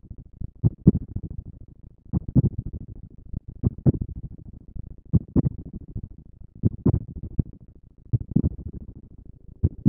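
A slow, heartbeat-like pulse of low double thumps (lub-dub), repeating about every second and a half.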